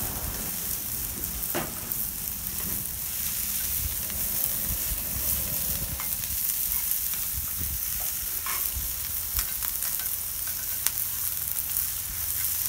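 Sliced onions and red and green peppers sizzling steadily in vegetable oil on the hot steel plate of a Blackstone 36-inch griddle. A few sharp clicks and scrapes come as a metal spatula works the food on the plate.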